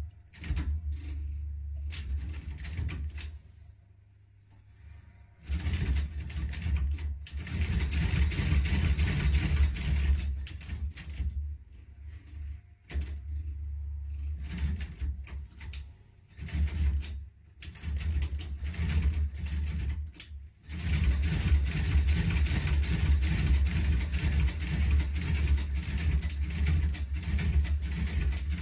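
Outsole stitching machine sewing a new leather sole onto a shoe: a low motor hum under fast rhythmic mechanical clatter that stops and starts several times, then runs without a break for the last third.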